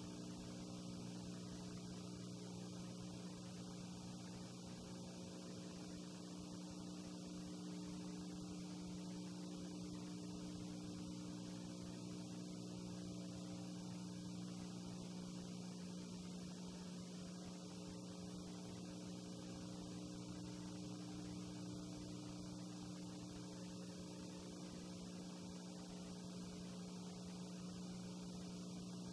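Steady electrical mains hum with an even hiss and nothing else. The 8 mm film is silent, so this is only the hum and noise of the tape-to-DVD transfer, with no recorded sound.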